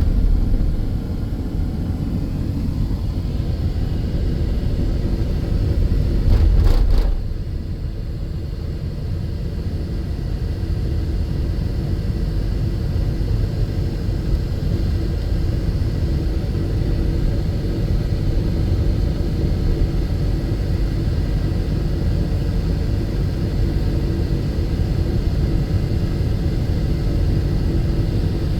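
Steady low rumble of a car driving, heard from inside the cabin, with a brief louder rumble about seven seconds in.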